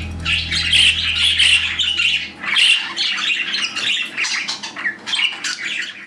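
Budgerigar chattering and squawking in a busy, unbroken warble. A low held background note fades out in the first two and a half seconds.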